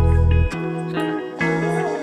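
Background music with guitar and a heavy bass line that drops out about half a second in.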